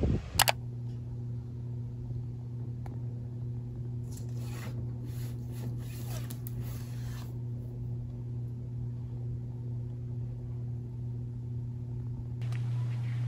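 A steady low hum throughout, with brief rustling and sliding between about four and seven seconds in as books are pushed into line on a shelf.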